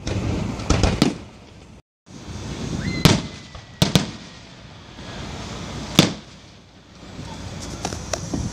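Aerial firework shells bursting: sharp bangs about a second in, twice between three and four seconds, and again at six seconds.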